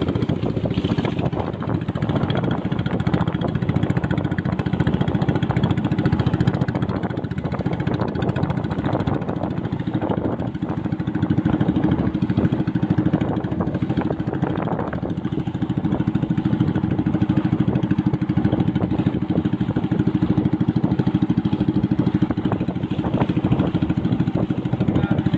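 Small wooden boat's engine running steadily at cruising speed, with a fast even putter, over the rush of water along the hull.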